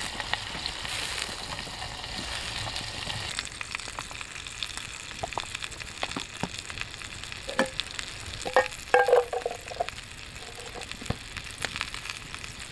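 Pannbiff meatballs sizzling in a pan over an open wood fire, with the fire crackling. A few loud short knocks come about eight to nine seconds in.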